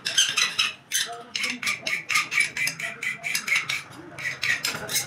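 Hand file rasping back and forth across the edge of a steel spoon blank held on an anvil, in rapid even strokes about four a second with a slight metallic ring.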